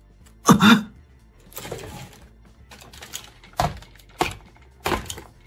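Plastic toy robots being handled on a tabletop, giving three short sharp clacks near the end. About half a second in there is a short, loud, mouth-made sound effect.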